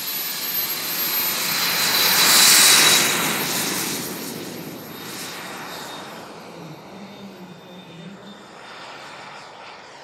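Elite Aerosports Havoc RC turbine jet making a fly-by: a rushing roar with a high-pitched turbine whine. It builds to its loudest about two and a half seconds in, then fades as it draws away.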